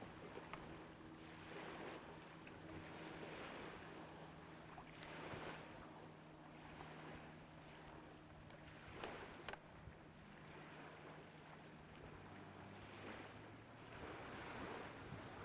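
Faint wind and small lake waves washing, swelling and easing every second or two, over a steady low hum. There are a couple of sharp clicks about nine seconds in.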